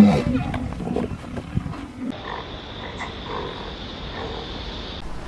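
A large animal's loud call trailing off in the first second, then, after a cut, short repeated animal calls over a steady high-pitched drone.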